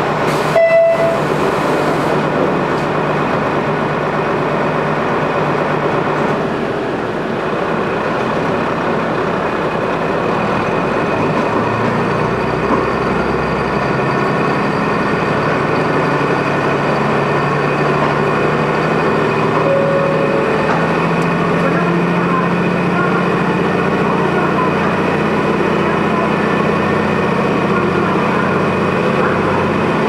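KiHa 200 series diesel railcar heard from inside the cabin as it pulls away from a stop: a steady diesel engine and running rumble, with the engine note rising from about halfway through. A short, sharp tone sounds about half a second in.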